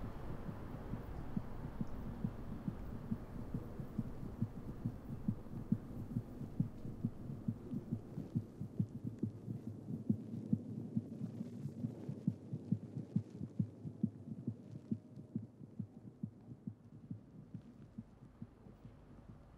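A slow, muffled heartbeat, about two beats a second over a low hum, fading away toward the end.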